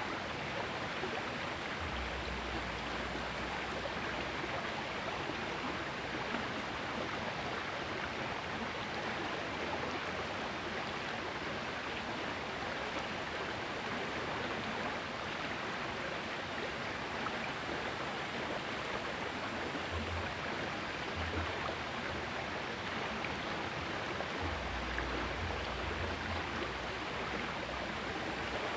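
Small river's water flowing in a steady rush, with a few brief low rumbles in the last seconds.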